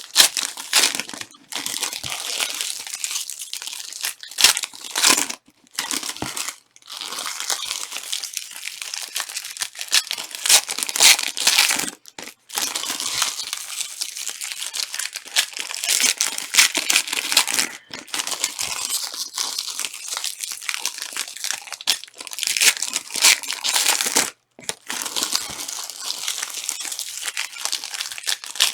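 Trading card pack wrappers being torn open and crinkled by hand: a near-continuous crinkling and tearing, broken by a few brief pauses.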